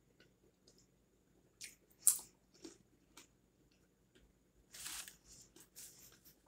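Eating noises from a crispy rolled chicken taco: a few short, scattered crunches and mouth sounds, the sharpest about two seconds in, then a closer run of crunches near the end as another bite is taken.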